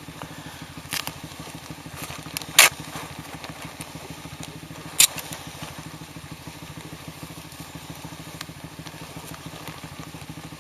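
Small motorcycle engine idling steadily, with three sharp clicks or snaps over the first five seconds.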